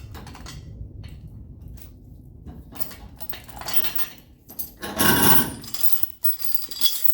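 Metal tools and steel clinking and clattering over a low rumble, with a louder scraping burst about five seconds in.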